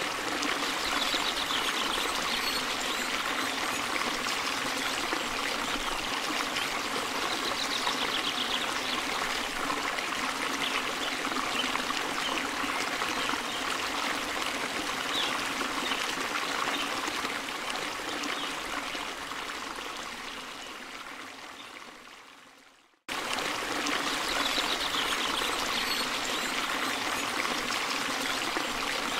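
Steady sound of running, trickling water like a stream, which fades out over several seconds, goes silent briefly about three-quarters of the way through, then starts again abruptly at full level, as a background ambience track would when it loops.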